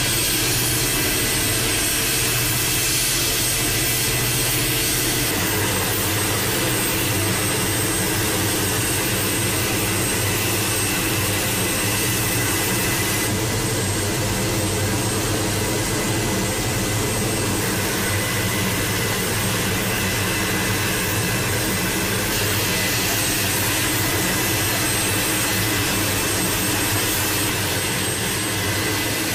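MQ-8B Fire Scout unmanned helicopter running on deck: its Rolls-Royce 250 turboshaft engine and rotors give a steady high whine over an even rushing noise.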